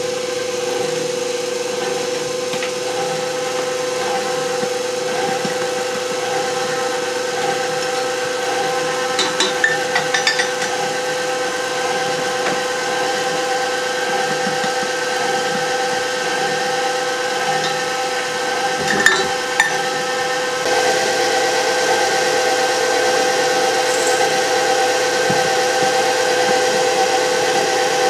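KitchenAid Professional HD stand mixer's electric motor running steadily with the wire whisk turning in the steel bowl, a constant humming whine. A few light clinks come twice along the way, and the mixer gets louder about two-thirds through.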